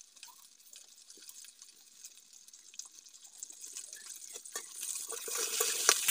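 Faint small clicks and drips, then from about four and a half seconds in a rising sizzling hiss as chopped vegetables frying in oil in a steel wok are stirred, with a few sharp knocks of the metal spatula.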